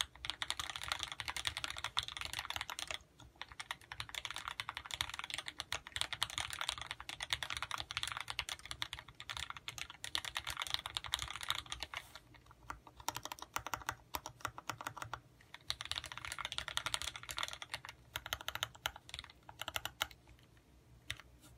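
Typing on a custom mechanical keyboard fitted with vintage Cherry MX Black linear switches (65 g): a dense, fast clatter of keystrokes with a few short pauses. The typing stops about 20 seconds in, followed by a couple of last taps.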